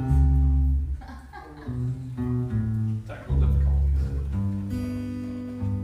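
Instrumental music with guitar chords over low bass notes, the chords changing about once a second.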